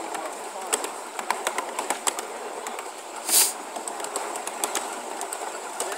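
Ride-on 1-inch-scale miniature train rolling along its small-gauge track: steady running noise with the wheels clicking and clattering irregularly over the rails, and a short hiss a little past three seconds in.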